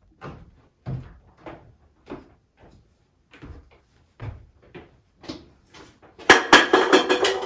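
A series of light knocks, about two a second, then a louder clattering burst with ringing tones about six seconds in.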